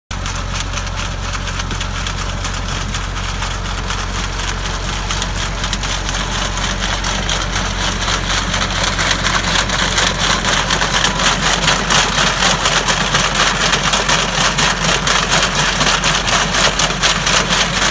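Massey Ferguson 2705 tractor's diesel engine running at a steady speed, with a black walnut cracker clattering as it crushes the shells; the rattling grows louder about halfway through.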